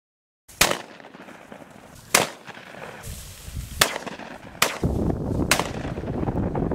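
Shotgun shots, five of them in about five seconds at uneven spacing, each a sharp crack with a short tail. Low wind rumble on the microphone in the second half.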